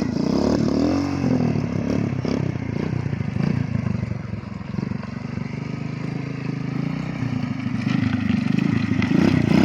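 Mini scrambler motorcycle's 90 cc engine revving up and down, then running more steadily and getting louder near the end.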